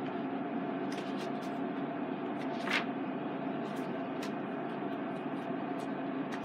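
Steady machine hum carrying a couple of constant tones, with a few brief rustles and clicks over it.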